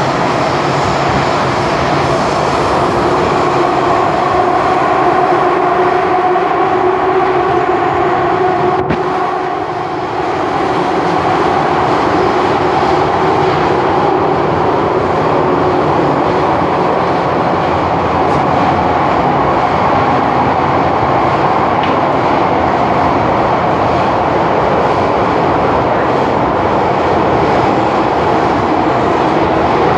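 Cabin of an MTR M-Train metro car running through a tunnel: a steady loud rumble of wheels and running gear with a hum of a few steady tones. It dips briefly about ten seconds in, just after a short click.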